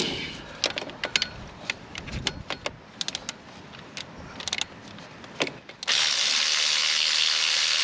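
Ratchet spanner clicking in short, irregular runs as a 13mm bolt is worked loose. About six seconds in, a loud, steady rushing noise starts and holds.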